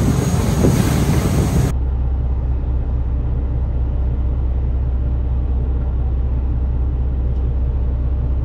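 Fishing boat's engine running steadily, a low even drone. A louder rush of wind and water noise lies over it for the first couple of seconds and cuts off abruptly.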